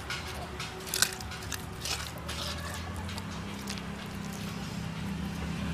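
Wet, squishy scraping as a hand gathers coarsely ground masala paste around the basin of a granite grinding stone, with a few soft clicks. A low steady hum runs underneath and grows a little louder in the second half.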